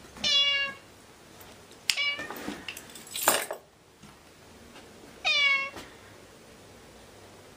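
Ginger tabby cat meowing: two loud drawn-out meows about five seconds apart, with a shorter sharp sound about two seconds in and a brief burst of noise about three seconds in.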